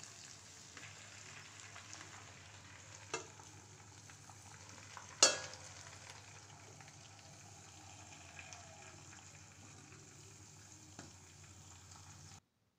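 Pork and lai xaak (mustard greens) sizzling quietly in a kadai. About five seconds in, a stainless-steel lid is set on the pan with a sharp metallic clink, after a lighter knock about two seconds earlier. The sound cuts off suddenly near the end.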